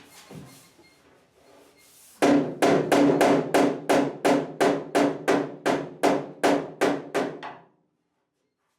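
Hammer striking the sheet metal of a 1963 Chevy C10 pickup cab, about sixteen even blows at roughly three a second, each ringing with a metallic tone. The blows start about two seconds in and stop suddenly near the end.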